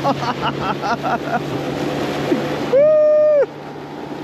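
Excited voices shouting or laughing in quick short bursts, then one long, loud yelled "Die!" near the end, held on a steady pitch for most of a second.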